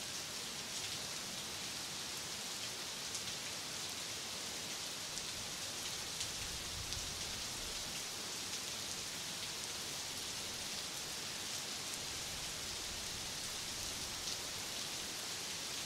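A steady, even hiss like rainfall, with faint scattered ticks.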